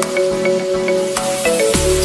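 Background music: an electronic track with held notes over a steady ticking beat, and a deep bass line that comes in near the end.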